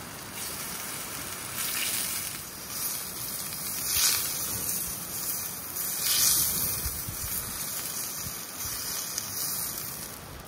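Thin slices of meat sizzling in a hot cast-iron skillet over a wood fire, with a steady hiss that swells each time a slice is laid in or turned, loudest about four and six seconds in.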